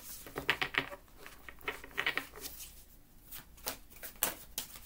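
A deck of Taoist cards being shuffled by hand: quick runs of card flicks about half a second in and again around two seconds, then a few single card snaps.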